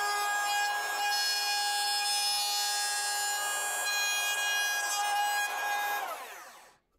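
Trim router motor running at a steady high whine while routing a groove in a pine strip, then switched off about six seconds in, its pitch falling as it winds down.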